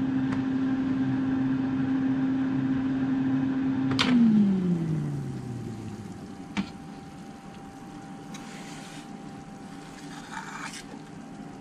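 Instant Vortex Plus air fryer's fan humming steadily with the fryer already switched off, then a click about four seconds in as the door opens and the fan winds down, its hum falling in pitch over about two seconds. A sharp click and brief rustling follow as the foil-lined tray is pulled out.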